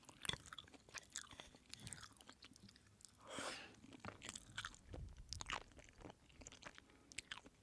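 A person chewing food close to the microphone: faint, irregular wet mouth clicks and crunches, with one brief louder hiss-like mouth sound about three and a half seconds in.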